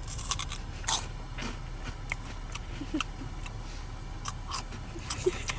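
Crunching and chewing Spicy Ramen Twisties, crisp puffed corn snacks: a run of irregular, sharp crunches for the crunch test.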